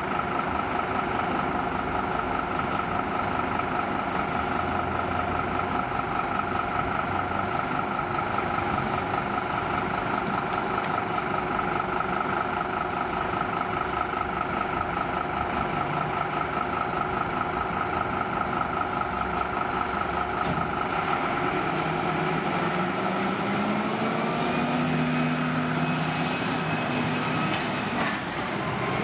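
Scania fire engine's diesel engine idling with a steady buzzing hum, then its engine note rises over the last few seconds as it pulls away.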